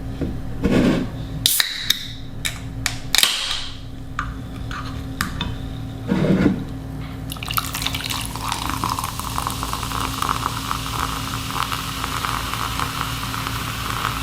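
A run of sharp clicks and knocks of dishes and utensils being handled, with a couple of dull thuds. From about halfway, a steady hissing sound of liquid pouring into a container.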